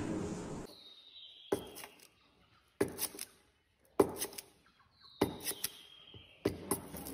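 A cleaver knocking into thin bamboo strips as they are split by hand: a sharp knock about every second and a quarter, five times. Twice a thin, high whine falls slowly in pitch.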